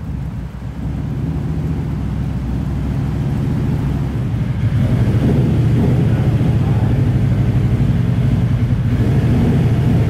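Can-Am Renegade 1000's Rotax V-twin engine running on a chassis dyno, a dense low rumble that grows louder over the first five seconds and then holds steady. The engine is running overly rich, the cause of its rough idle and stalling.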